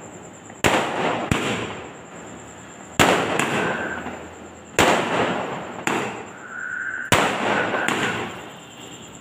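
Aerial fireworks bursting overhead: about six sharp bangs, one every second or two, each followed by a spray of crackling that fades away.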